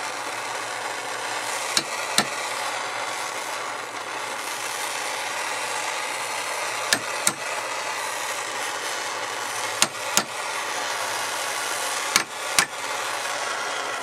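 Butane torch flame hissing steadily while steel vise grips holding a PL-259 connector are tapped against a bench vise: four pairs of sharp knocks, about every two and a half seconds. The taps knock molten solder and old wires out of the heated connector.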